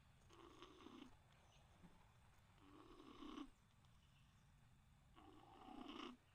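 Faint, soft snoring: three drawn-out snores, each about a second long, coming about every two and a half seconds in a slow, even breathing rhythm.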